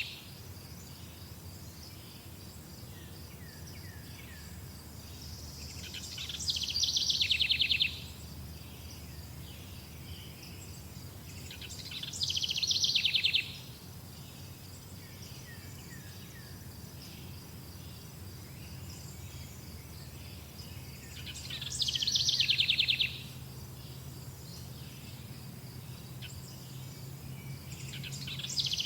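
A songbird repeating a short song four times, roughly every six to nine seconds; each song builds quickly and ends in a loud, fast trill. Softer chirps come in between, over a steady high-pitched tone and a faint low hum.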